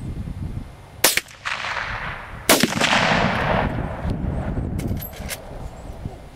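Two gunshots about a second and a half apart, each with a long rolling echo; the second is the louder. A few faint clicks follow about five seconds in.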